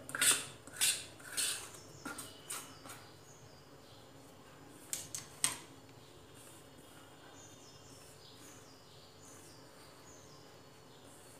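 Metal spoon scraping and clinking against a stainless steel bowl as gram flour, semolina and ghee are stirred together, several strokes in the first three seconds. Two sharp clicks about five seconds in.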